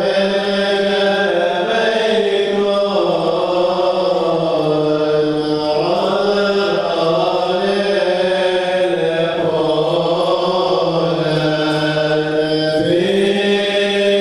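A congregation of many voices chanting a Syriac Orthodox liturgical hymn together, long held notes that slide slowly up and down in pitch.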